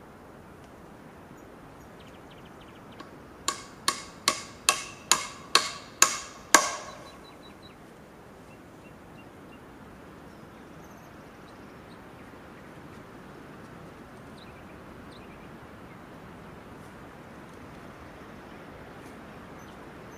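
Eight quick hammer blows with a metallic ring, a little over two a second and mostly louder each time, then a steady outdoor hush.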